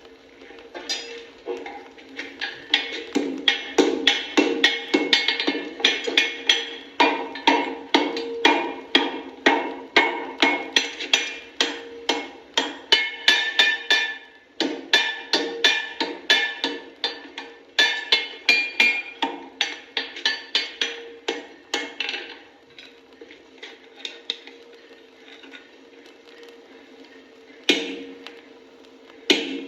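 Blacksmith's hammer striking hot iron on an anvil while making horseshoes: fast, ringing metal blows, two to three a second, with the anvil's ring hanging between them. The hammering stops about 22 seconds in, and a few single blows follow near the end.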